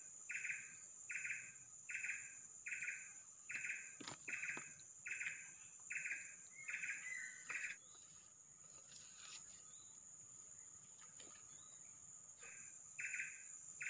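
Forest insects calling: a rhythmic pulsed chirp, about three every two seconds, stops a little past halfway and comes back near the end, over a steady high-pitched insect drone. A few faint clicks are also heard.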